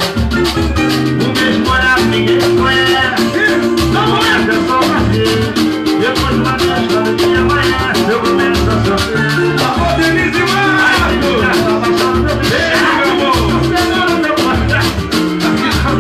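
Brazilian band music with dense, fast hand percussion over a repeating bass line.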